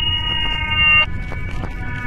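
Homemade emergency alert system alarm: a chord of several steady electronic tones over a low noise bed. The chord swells, then switches to a different chord about a second in.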